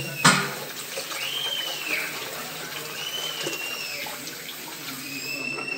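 Tap water running steadily into a bathroom sink, stirred by a hand testing the water. A held kitten gives three short, high mews over it.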